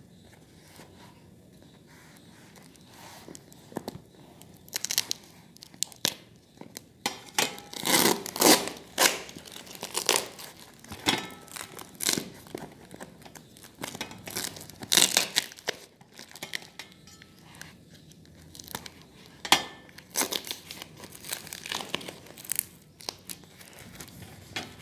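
Brown parcel wrapping being torn and crumpled open by hand: a run of irregular rips and crinkles that starts a few seconds in, loudest near the middle.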